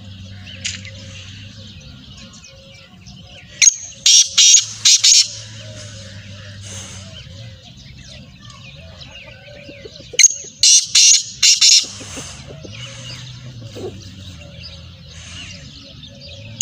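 Black francolin calling twice, each call a quick run of five or six loud, high notes lasting under two seconds. Between the calls there are fainter bird chirps over a low steady hum.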